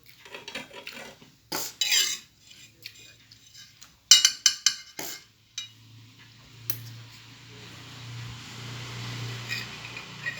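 Spoon and plate clattering at a meal, with a cluster of louder clinks about four seconds in. A steady low hum with a hiss sets in about halfway through.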